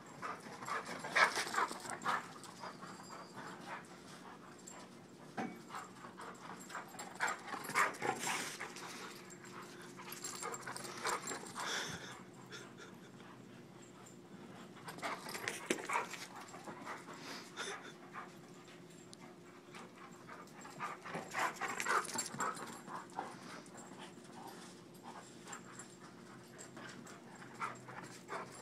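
German shorthaired pointer panting, in bursts every few seconds, over a steady low hum.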